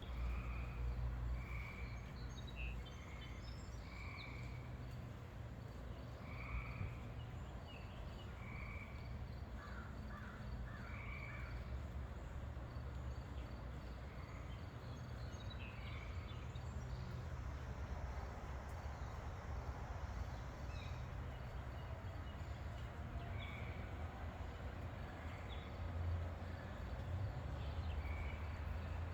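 Crows cawing, a string of short caws every second or two that thins out after about ten seconds, over a steady low rumble.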